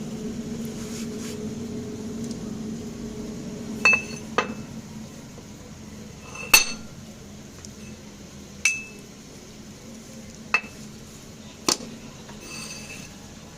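Metal tools striking metal parts of a motorcycle gear being worked on: about six sharp clinks, spaced a second or two apart, each ringing briefly. A steady low hum underlies the first four seconds and then stops.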